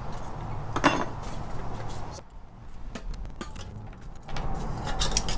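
A few scattered small metal clicks and clinks as screws are backed out with a screwdriver and a metal mounting bracket is lifted off an engine control unit's metal case.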